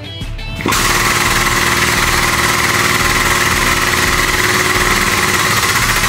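Hydraulic foot pump running under its pedal, a loud, steady hiss and hum that starts abruptly under a second in and holds: the pump running the pressure up to 3000 PSI to set a tube plug.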